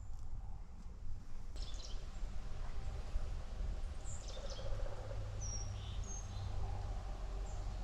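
Wild birds giving a few short, high chirps and quick falling whistles, starting about a second and a half in, over a steady low rumble.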